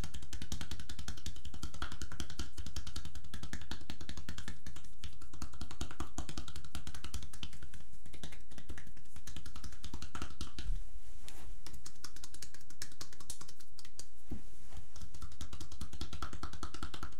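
Cupping tapotement: cupped hands patting rapidly and continuously on a person's bare back and shoulders, a fast steady patter of pats.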